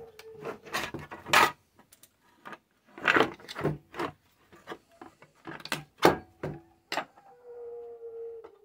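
Scattered clicks, taps and knocks of metal parts being handled as the aluminium housing of a radiotelephone is pried open and its lid lifted off the circuit board, with a short steady tone near the end.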